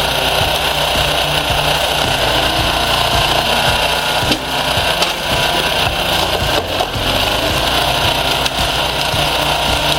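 A motorised machine running steadily and loudly, with a dense mechanical noise that dips briefly a couple of times.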